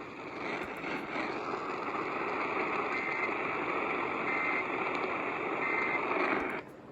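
Steady radio static carrying three short, high data bursts about a second apart: the EAS end-of-message (NNNN) codes that close the severe thunderstorm warning. The static cuts off suddenly near the end.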